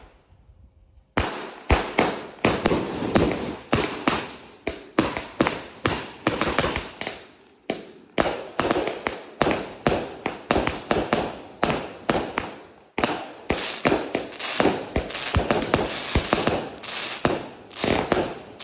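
A 0.8-inch, 138-shot consumer firework cake firing in quick succession: sharp launch thumps and aerial breaks with crackle, about two to three shots a second. It starts after a short lull about a second in, with brief gaps near the middle.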